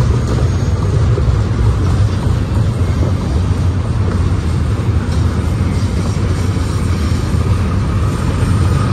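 Double-stack intermodal freight cars rolling past close by: a loud, steady rumble of steel wheels on rail.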